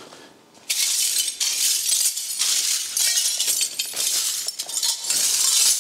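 Stiff broom sweeping gritty debris across a concrete floor in a run of quick strokes, starting about a second in.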